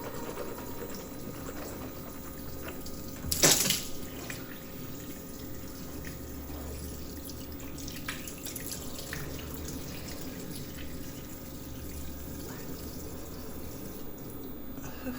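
Water running from a tap into a sink, with a brief louder gush about three and a half seconds in and a few faint clicks.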